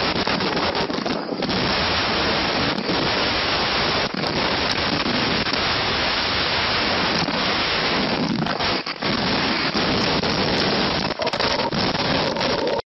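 Tornado-force wind blasting a Ring doorbell camera's microphone, with driving rain, as a loud, steady wind noise. It cuts off suddenly near the end.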